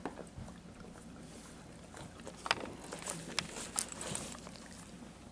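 Faint scattered clicks and rustles of a large black dog moving about right beside the camera, with a few sharper ticks in the middle.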